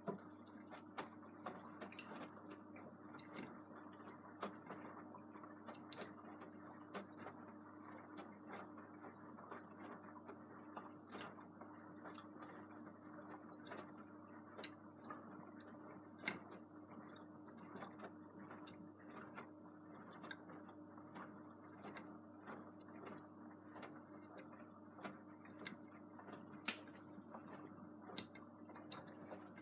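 Beko WM74165W washing machine in its wash cycle: the drum motor hums steadily and the drum turns with an irregular scatter of light ticks and taps.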